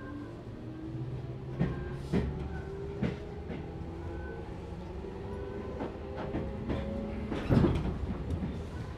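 Tobu 6050 series EMU heard from inside its motor car: the TM-63B traction motors of this resistance-controlled train hum with a pitch that climbs steadily as the train gathers speed. The wheels clack over rail joints, with a loud burst of clatter about seven and a half seconds in.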